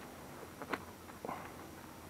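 Faint rustling of hands working a vinyl seat cover around the edge of a dirt bike seat base, with two brief soft taps about halfway through.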